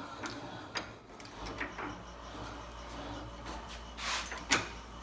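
Scattered light metal clicks and a sliding scrape as a drive shaft U-joint is set into a bench vise and the jaws are closed on it, with a sharper knock about four and a half seconds in.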